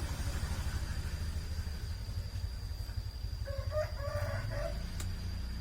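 A rooster crows once, starting about three and a half seconds in and lasting just over a second, over a steady low rumble.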